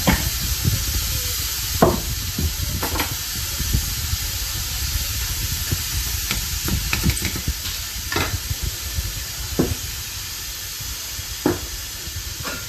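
Tempering sizzling in hot oil in a pan while it is stirred, with a few sharp clicks scattered through; the sizzle slowly dies down.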